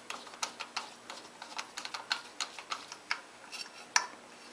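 Screwdriver turning a screw in the metal pulley cover of a lathe headstock: a string of small, irregular clicks and ticks, with one louder click about four seconds in.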